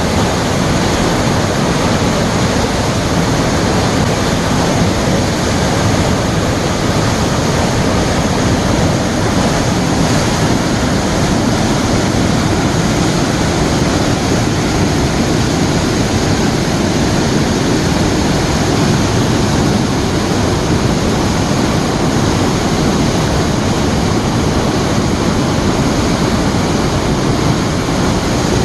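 A waterfall swollen by heavy rain, its water pouring down loud and steady without a break.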